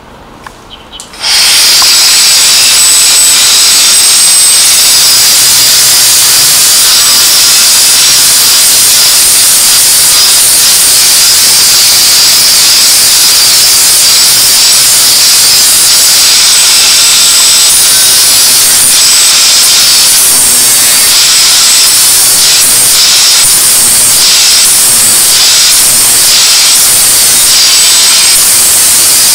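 Cordless angle grinder with a flap disc starting up about a second in and then grinding steadily with a loud, high hiss and a thin whine, smoothing the surface of a handmade axe head.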